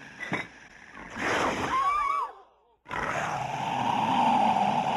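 A movie-monster roar sound effect with a wavering screech in it. After a short break, a long, steady, loud held sound starts about three seconds in.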